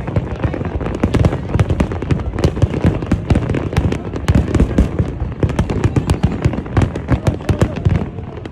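Aerial fireworks going off in a dense, continuous barrage of bangs and crackles, several reports a second with a low rumble under them.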